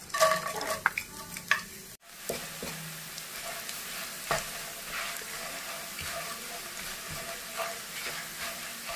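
Dried anchovies are scraped from a plastic bowl into hot oil with a wooden spatula, giving a few sharp knocks. After about two seconds comes a steady sizzle of the anchovies frying, with scattered scrapes and taps of the spatula stirring them in the wok.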